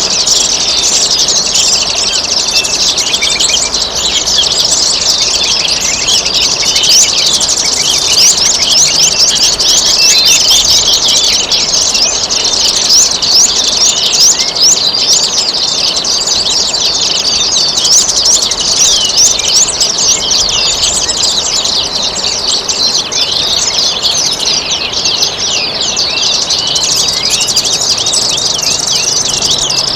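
Dense, unbroken chorus of many small birds chirping rapidly and high-pitched, over a steady trickle of running water.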